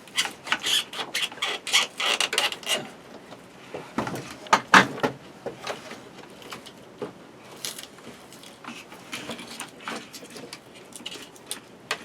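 Irregular rustling, clicks and knocks of hands-on handling work. They are busiest in the first few seconds, with the loudest knocks about four to five seconds in, then sparser and quieter.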